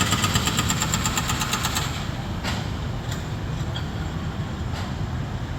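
Jackhammer breaking up a concrete sidewalk, a fast steady hammering that stops about two seconds in. An engine keeps running underneath, joined by a couple of single knocks.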